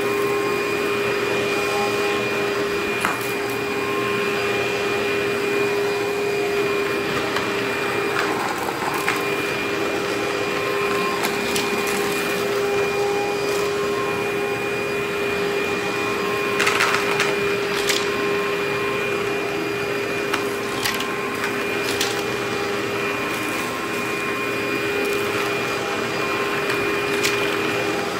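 Upright vacuum cleaner running steadily with a constant motor whine as it is pushed over a carpet doormat, with scattered sharp clicks and crunches of grit being picked up.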